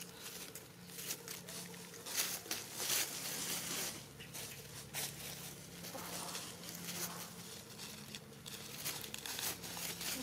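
Dry leaves rustling and crackling in irregular bursts as chickens scratch and peck through leaf litter, over a faint steady low hum.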